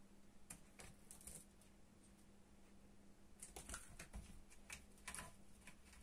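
Faint, irregular scratching and clicking of a cat's claws as it paws at a rope-wrapped chair leg, in two short flurries: about half a second in and again from about three and a half seconds in.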